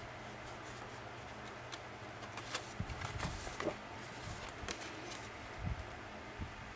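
Faint handling of paper and cardstock: scattered light taps, clicks and rustles as flaps are folded and tucked into a pocket, over a steady low hum.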